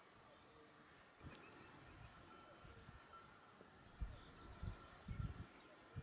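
Faint outdoor meadow ambience: a distant insect chirping in an even, repeating pattern, with a few low thumps on the microphone about four and five seconds in.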